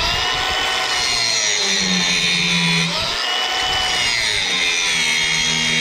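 Corded angle grinder grinding steel, its high whine steady and dipping in pitch about three seconds in as the disc is pressed into the work.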